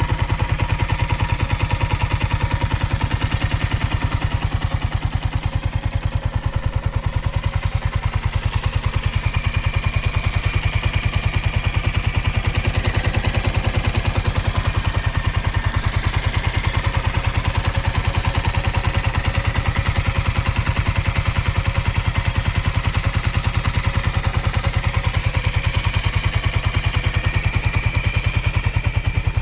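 Suzuki Volty's 250 cc air-cooled single-cylinder four-stroke engine idling steadily with an even firing pulse. It runs smoothly and quietly with no abnormal noises, as a 7,000 km engine in good order.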